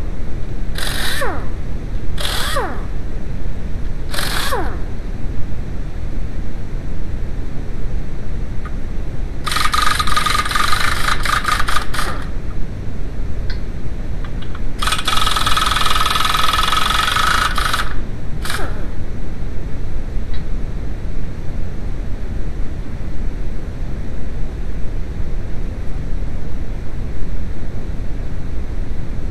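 Pneumatic impact wrench firing in about four short bursts on the wheel bolts, then two longer runs of two to three seconds each on the 32 mm axle nut, and one last short burst. Under it all runs a steady hiss: noise added to mask shop radio music.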